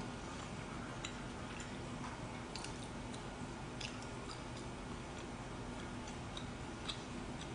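Quiet room tone: a steady low hum under a hiss, with a few faint clicks scattered at uneven intervals.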